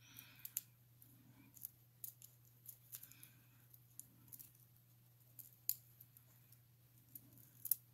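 Faint, scattered little clicks of beads and chain knocking together and against fingernails as a tangled beaded necklace is picked apart by hand, over a faint steady low hum.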